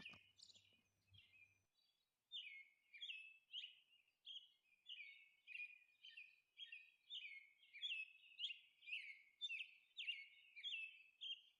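Faint bird chirping: short, high, hooked chirps repeating about twice a second, starting about two seconds in.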